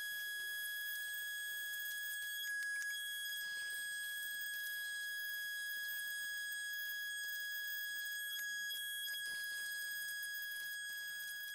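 Pneumatic die grinder with a red abrasive wizard wheel giving a steady high whine as it cleans old head-gasket material off an engine block's deck.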